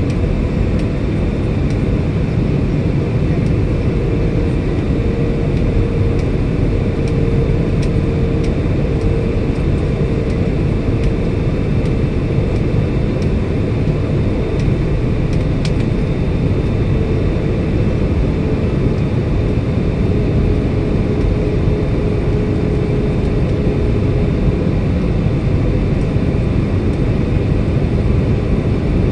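Airliner cabin noise in flight: the steady rush of engines and airflow heard from a window seat, with a faint steady hum through much of it.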